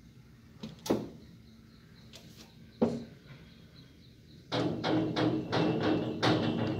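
A window's glass pane and metal grille knocked and rattled by a monkey clambering on the bars: two sharp knocks a couple of seconds apart, then a run of rapid rattling knocks starting about four and a half seconds in.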